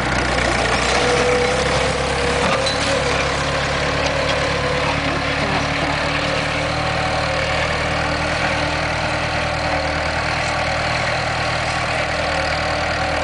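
Tractor engine running steadily as it pulls a plough through the field.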